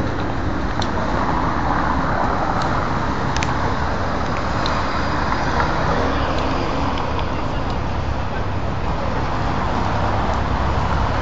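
Steady city road traffic noise, swelling twice as vehicles pass.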